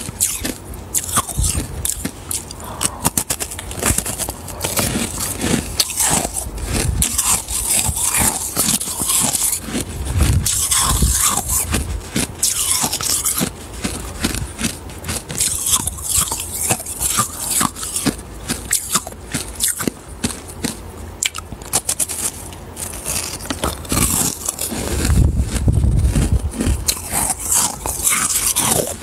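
Frost-covered ice being bitten and crunched right at a clip-on microphone held by the mouth: a dense run of crisp crackling crunches, with a few heavier bites about ten seconds in and again near the end.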